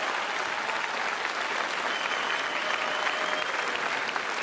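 Crowd applauding: a dense, steady patter of clapping, with a thin high steady tone above it for a second or two midway.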